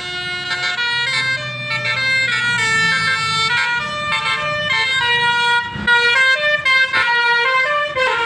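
A bus's 12-trumpet Basuri telolet horn playing a melody: a run of held notes stepping up and down in pitch, several sounding together. Two short thumps in the second half.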